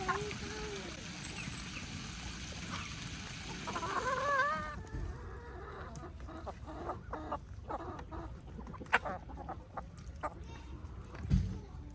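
Chickens clucking and squawking, with calls at the start and again about four seconds in. After that come scattered light knocks and clicks, and a dull thump near the end.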